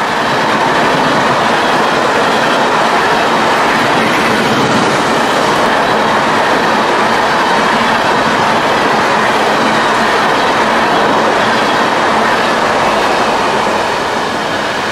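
Freight train of empty tank cars rolling past at about 50 mph: steady wheel-on-rail running noise, without a break.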